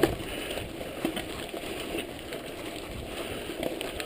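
Steady low rumbling noise of a vehicle in motion, with no distinct events.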